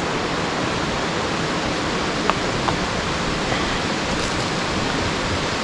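Steady rushing of a nearby river, an even wash of water noise, with a faint click about two seconds in.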